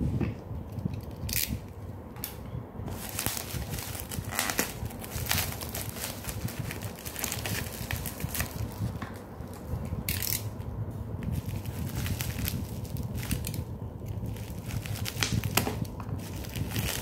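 Paper instruction leaflet rustling and crinkling as it is handled and folded, then cardboard packaging and a paper sleeve being handled as the gimbal is lifted out of its box, with irregular crackles throughout.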